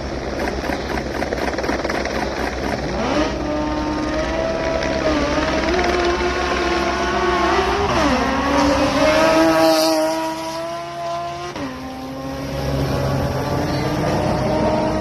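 Race car engine accelerating hard up a hill-climb course; its pitch climbs, drops sharply twice as it shifts up, and it is loudest just before the second shift.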